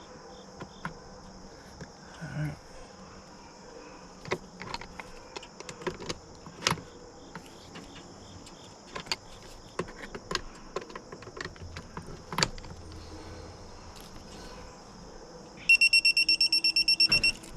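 Scattered metallic clicks and clinks of hand tools and fittings being handled. Near the end comes a fast run of short, high-pitched electronic beeps lasting about a second and a half, the loudest sound here.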